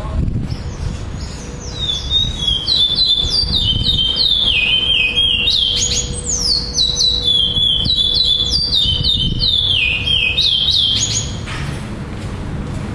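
Male chestnut-bellied seed finch (curió) singing its tournament song: fast high whistled notes that each slide downward, strung into phrases that repeat over and over. The song starts about a second and a half in and stops near the end.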